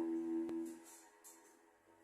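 A sustained, single-pitched musical note with rich overtones dying away within the first second, with a faint click partway through, leaving quiet room sound.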